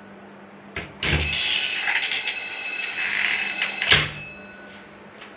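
A wardrobe door clicks open, setting off an alarm bell wired to a door switch; the bell rings steadily for about three seconds until the door is knocked shut about four seconds in, which cuts the bell off.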